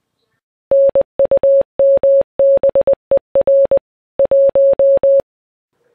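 Morse code sent as a single steady beep tone, keyed in short and long elements that spell out "NUMBER 1" (-. ..- -- -... . .-. .----).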